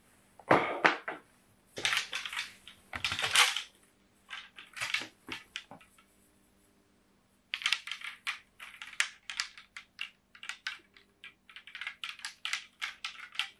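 Old rusty iron golf clubs being polished and handled by hand: a few scrubbing rubs, then, about halfway in, a long run of quick, irregular clicks and taps.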